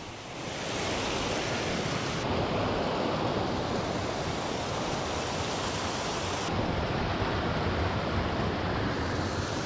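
Snow-fed mountain stream rushing over boulders, a steady noise of fast water that changes slightly in tone about two seconds in and again past six seconds.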